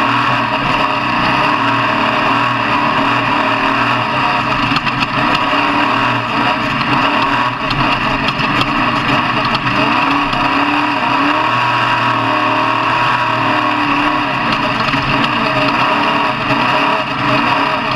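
Off-road truck engine running hard, with the revs wavering up and down about two-thirds of the way through.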